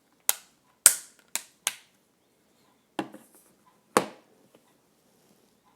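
A series of sharp clicks and taps, six in about four seconds and irregularly spaced. The loudest comes about a second in and another strong one about four seconds in.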